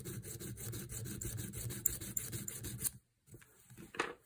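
Small diamond file rasping in quick short strokes in the slot of a small steel screw, re-cutting a burred-over screw slot; the filing stops about three seconds in, and a brief click follows near the end.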